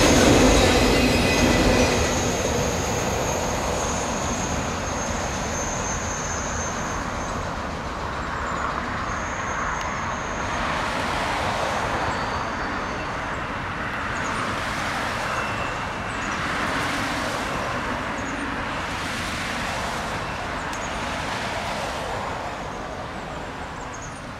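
Freight train of autorack cars rolling by on the rails, with thin high-pitched wheel squeals over the rumble for the first several seconds. The sound then fades gradually as the end of the train moves away.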